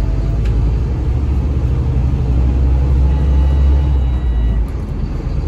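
Scania DC9 five-cylinder diesel of a Scania K320HB bus heard from inside the passenger cabin: a steady low engine and road rumble while under way. The rumble eases off a little about four and a half seconds in.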